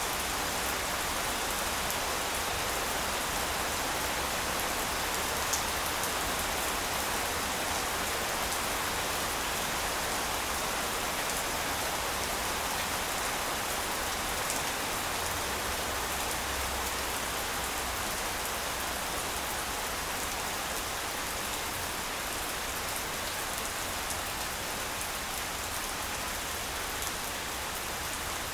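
Steady rain falling on grass: an even hiss, with a couple of sharper single drop hits.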